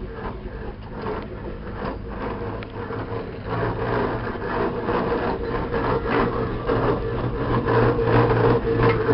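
Steam roller running as it drives past, its steam engine beating out a regular exhaust beat over a steady mechanical hum and clatter, growing louder as it comes close. The roller carries the rampant-horse emblem of an Aveling & Porter.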